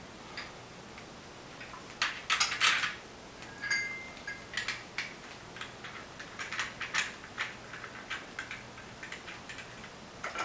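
Metal drum-rack pipes and clamps clinking and knocking while a rack bar is fitted into its clamps: scattered, irregular clicks, with a short ringing clink about four seconds in.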